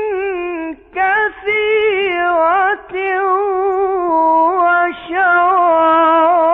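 A male Quran reciter's voice in melodic, ornamented tajweed recitation, drawing out the words in long held notes that waver up and down. It breaks off briefly about three times, and the last note is held steady.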